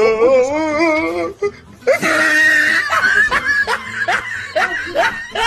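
Loud human laughter: a wavering drawn-out laugh, then a run of short repeated bursts of laughing.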